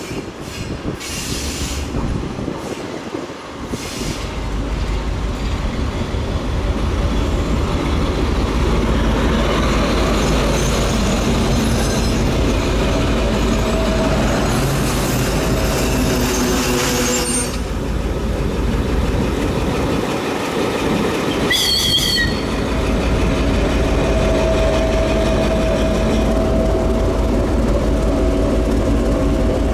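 DM62 diesel locomotive, with its two-stroke V12 diesel engine, passing close by; the engine's heavy low rumble sets in about four seconds in. Its wheels squeal on the rails, with a brief high squeal about 22 seconds in.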